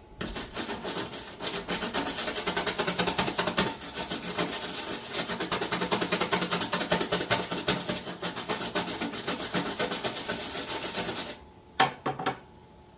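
Gasless (flux-core) MIG welder arc crackling steadily while welding thin sheet steel, for about eleven seconds before it cuts off suddenly. A couple of short sharp knocks follow.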